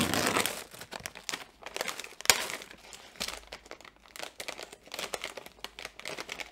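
A plastic candy bag of M&M's being torn open and crinkled in the hands. There is a loud tear at the start, a sharp crackle a little over two seconds in, and then steady small crinkling as the bag is worked open.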